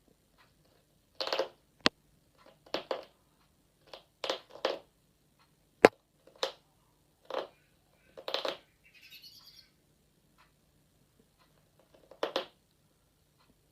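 Birds out of sight in a corner of a room making scratching, rustling noises: about ten short bursts at uneven intervals, two of them sharp clicks, with a fainter, higher sound shortly before the middle.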